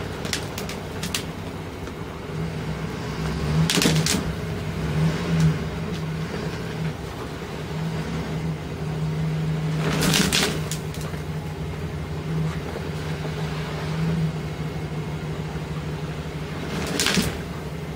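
Pickup truck engine in four-wheel drive straining under load as it pulls a bush out of the ground by a chain. The engine hum climbs and eases in long surges, with three short louder rushes of noise about 4, 10 and 17 seconds in.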